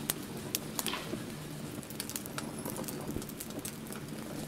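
Crackling fire sound effect: irregular sharp crackles and pops over a low steady rumble.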